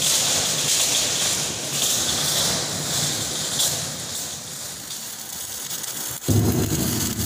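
Electric arc welding on steel plate inside a tank shell: a steady hiss from the arc. About six seconds in, a louder, lower hum starts.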